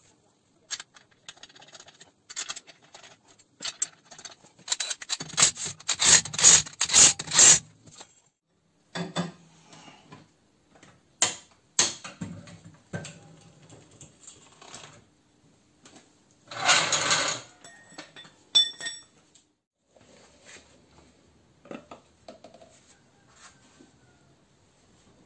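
Metal tools and parts clinking, knocking and scraping during hand work on a car's brakes, with a quick run of loud metallic clatter about five seconds in and a short burst of noise around seventeen seconds.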